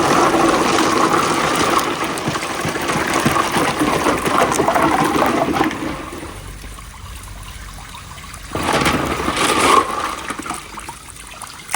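Released water rushing down a water-flow marble run, loud for about six seconds and then falling off suddenly; a second short surge of water comes about eight and a half seconds in and lasts about a second, then a trickle.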